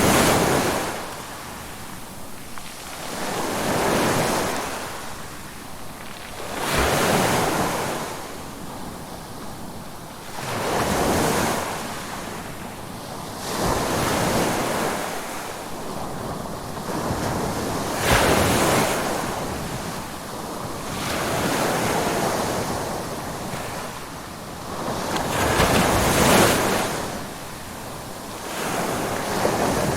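Ocean waves breaking, the surf swelling and falling away about every three to four seconds.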